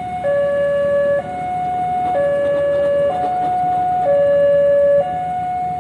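Railway level-crossing warning alarm sounding a steady high–low two-tone signal, each tone held about a second, as the crossing closes ahead of a train.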